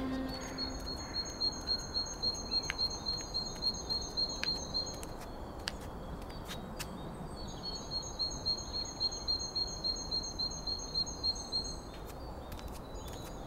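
Outdoor ambient noise with two runs of high, evenly repeated chirps or squeaks, about two to three a second, each run lasting several seconds. A few faint clicks are scattered through it.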